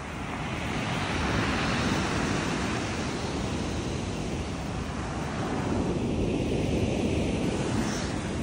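Black Sea surf: waves breaking and washing on the shore, building up over the first second or two and then holding, with some wind on the microphone.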